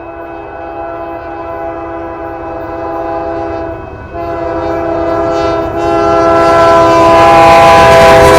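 Union Pacific locomotive air horn sounding a long multi-note chord in a horn show, broken briefly about four seconds in, then resuming and growing louder as the locomotive approaches. The rumble of the oncoming train rises under it near the end.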